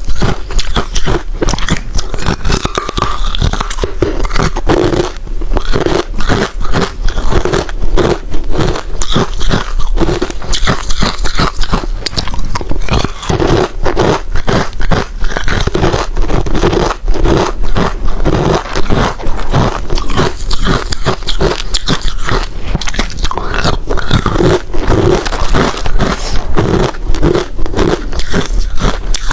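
Close-miked biting and chewing of hard crushed ice, one crunch after another in a dense, irregular run.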